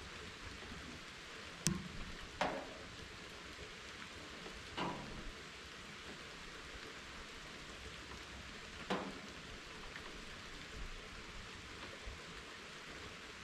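Steady rain falling, an even hiss, with a few louder single drops landing close by: four sharp plinks in the first nine seconds.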